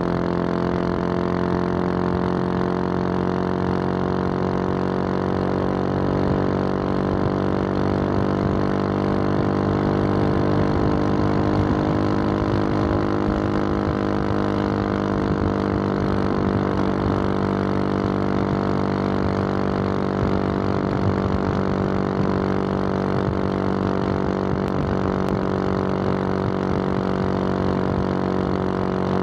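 2021 Husqvarna 701 Supermoto's single-cylinder engine running at a steady highway cruise through its Wings aftermarket exhaust, the pitch rising a little and settling back about halfway through.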